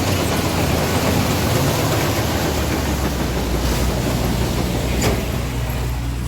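John Deere 5050D tractor's engine running steadily, driving a tractor-powered soybean harvester: a loud, even machine drone with a single sharp knock about five seconds in.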